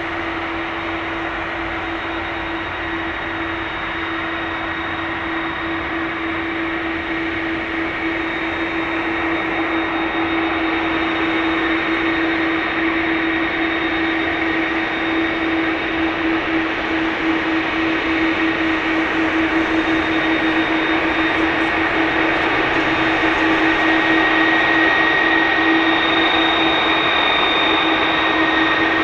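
Airbus A330-300's twin turbofan engines at low taxi power: a steady jet hum with a high whine, growing louder as the airliner taxis toward the listener.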